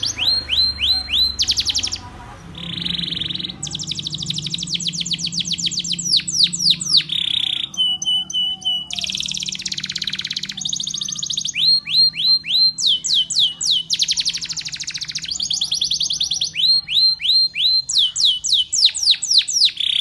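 Domestic canary singing: long, fast rolls and trills of rapidly repeated descending notes, with short pauses between phrases and one brief steady whistled tone partway through.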